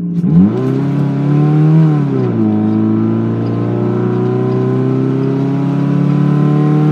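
Car engine with an ECU tune, aftermarket intake and exhaust, at full throttle in a rolling acceleration run. It dips and rises as the throttle goes down, climbs in revs and drops at an upshift about two seconds in, then pulls again with the revs rising steadily.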